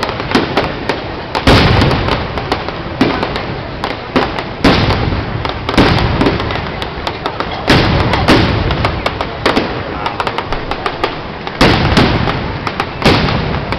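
Fireworks display going off in a dense barrage: rapid crackling and many overlapping bangs, with louder bangs every few seconds.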